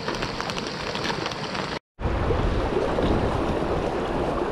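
Steady rushing of river water. The sound drops out completely for a moment about two seconds in and comes back louder, with more low rumble.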